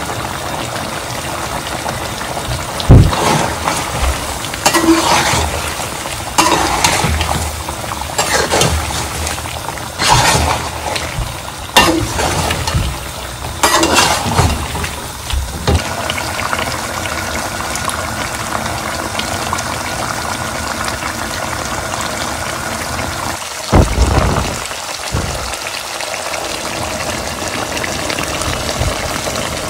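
Chicken karahi sauce sizzling and bubbling on high heat in a metal pan. Through the first half a spatula stirs it in a series of scraping, knocking strokes against the pan, and one more knock comes later.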